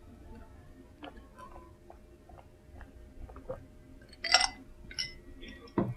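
Person drinking water from a glass: small swallowing and mouth clicks. About four seconds in there is a short, sharp hiss, a smaller one a second later, and a dull thump just before the end.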